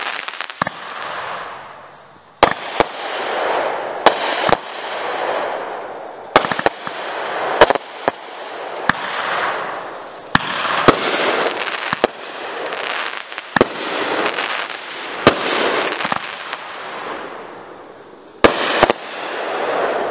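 American Bad Asses 25-shot 500-gram firework cake firing: about twenty sharp shots and bursts, one every second or so, each followed by a hiss that swells and fades.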